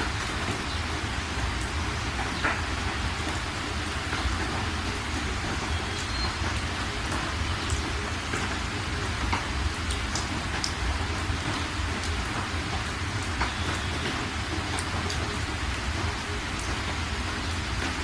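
Steady rainfall: an even hiss of rain with individual drops ticking here and there, and a steady low rumble underneath.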